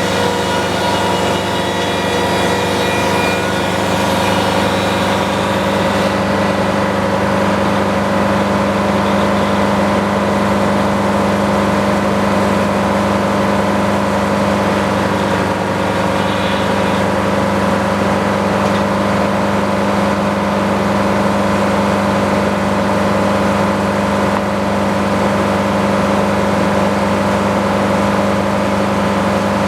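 Sawmill engine running steadily under load, a constant hum with a higher hiss over it that stops about six seconds in.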